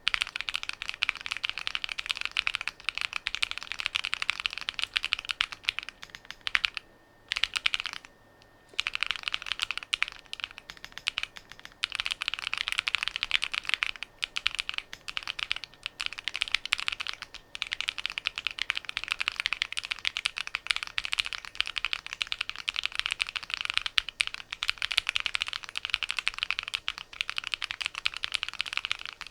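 Fast, steady typing on a DIY Alice-layout mechanical keyboard, with two short breaks about seven seconds in.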